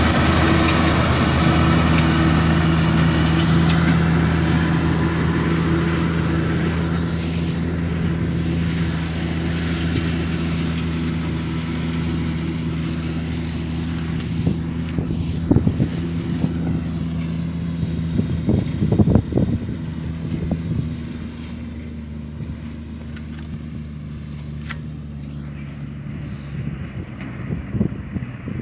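Tractor and forage harvester running steadily while chopping wheat for silage and blowing it into a trailer, the engine's steady drone and the chopper's hiss growing fainter as the machines move off. A few brief rumbling bursts come about halfway through.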